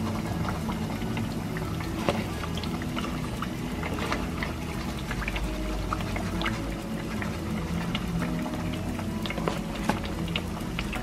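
Green-plantain patacones sizzling in hot oil in a pan on their second fry, a steady sizzle with frequent small crackles and pops.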